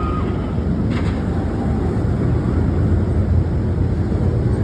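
Roller coaster ride in motion: a loud, steady rumble of the train with wind rushing over the microphone.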